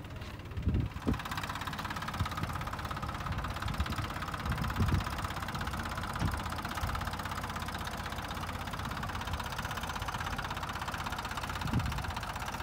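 Farm tractor's diesel engine running steadily while hauling a trailer loaded high with fodder, growing louder about a second in.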